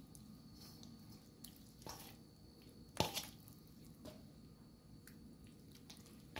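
Faint wet squelches and small clicks of a hand rubbing seasoning paste into a raw pork leg in a stainless steel bowl, with one sharper click about three seconds in.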